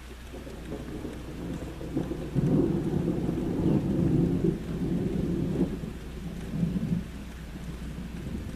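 A long roll of thunder rumbling over steady rain. It builds over the first two seconds, is loudest through the middle, and dies back to the rain about a second and a half before the end.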